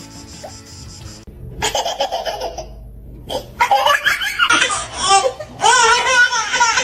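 Background music that cuts off about a second in, followed by a person laughing loudly in several long fits.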